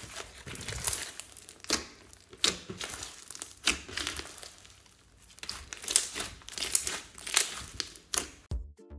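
Hands kneading, stretching and pressing a big mass of foam-bead slime, giving wet squelches broken by sharp, irregular crackles and pops. Music starts just before the end.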